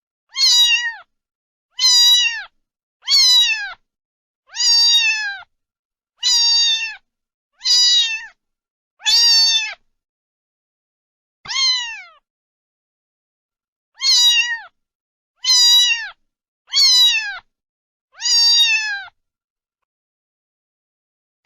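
A cat meowing over and over: about a dozen high meows, each under a second and falling in pitch at the end, with longer pauses about halfway through.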